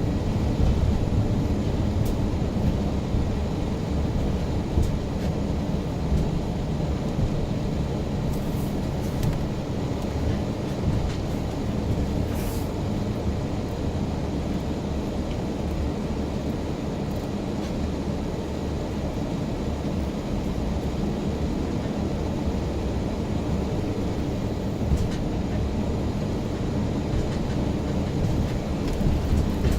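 Car driving, a steady low rumble of road and engine noise, with a few faint clicks about a third of the way in.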